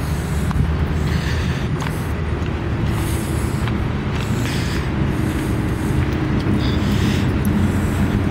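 A steady low engine drone, with light crunching steps on gravel.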